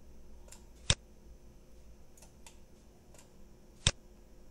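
Two sharp computer mouse clicks, one about a second in and one near the end, with a few fainter ticks between them.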